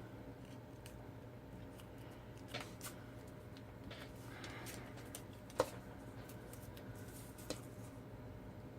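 Quiet handling of cardstock and craft tools: soft paper rustling and a few light clicks and taps, the sharpest a little past halfway.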